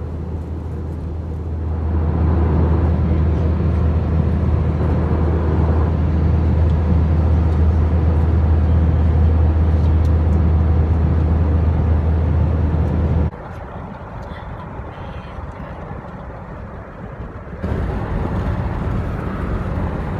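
Airbus A321 cabin noise at cruise: a steady low drone from the engines and the airflow, with a wide hiss over it, growing louder about two seconds in. It cuts off abruptly past the middle to a quieter hiss, and near the end this gives way to a different steady background noise.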